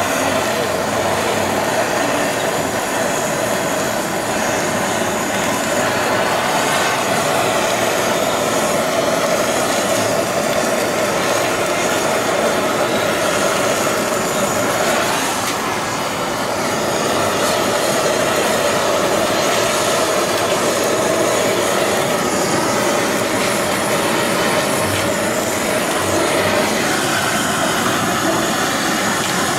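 Eel fillets sizzling on a hot gas-fired griddle, a loud, steady hiss with a continuous roar beneath it.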